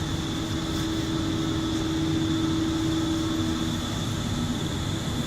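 Steady machinery hum with a hiss; a held tone gives way to a slightly lower one a little before four seconds in.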